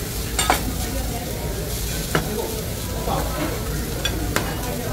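Food sizzling on a hibachi steakhouse's flat-top griddle, with three sharp clacks over it.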